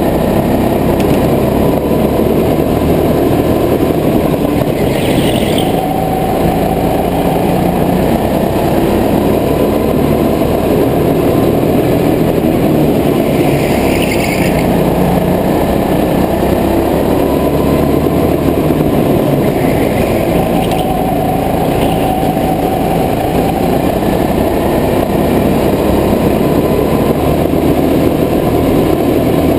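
Go-kart engine running steadily at speed through the laps, heard from the driver's seat. A few brief hissing bursts come and go, about a sixth of the way in, near the middle and about two-thirds through.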